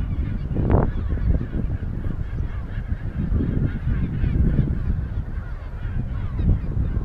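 A dense chorus of many birds calling at once, short overlapping calls, with one louder call under a second in, over a steady low rumble.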